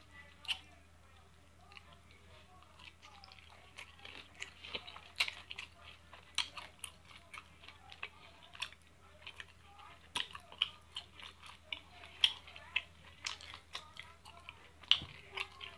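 Close mouth sounds of a person chewing and biting baked chicken thigh with its skin: irregular wet smacks and clicks, several a second.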